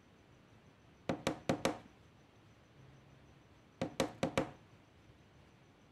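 Two quick runs of four sharp knocks, the second run about two and a half seconds after the first.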